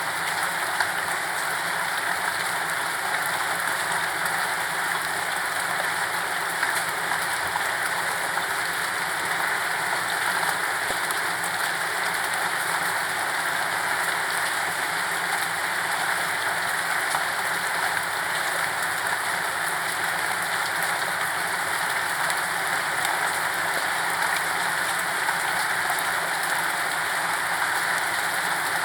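Steady rain falling on surfaces, an even hiss of many drops with no thunder, no music and no change in strength.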